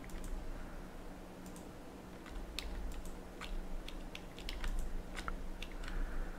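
Irregular clicking of a computer mouse and keyboard, about a dozen short sharp clicks spread unevenly through the stretch. A faint steady hum runs underneath.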